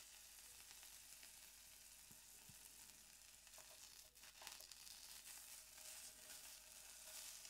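Faint, steady sizzle of a cube of A5 Japanese wagyu searing on a dry electric griddle plate with no oil, its fat rendering out. The plate is not fully up to heat, so the sizzle is quiet.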